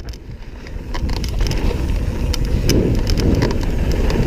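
Full-suspension mountain bike descending a gravel trail at speed: wind buffeting the helmet-camera microphone and tyres rumbling over loose stones, with frequent short clicks and rattles from the bike.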